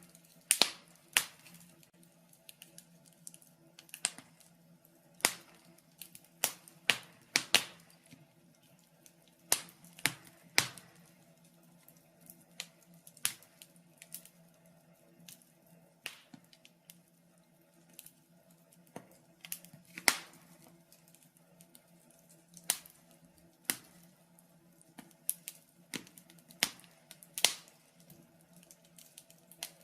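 Wood fire in a fireplace crackling: sharp, irregular pops and snaps, sometimes two or three close together, over a faint steady hum.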